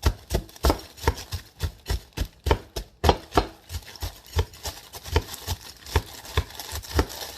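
Butter knife repeatedly jabbing and knocking at a solidly frozen clump of peas to break it apart, about three sharp knocks a second.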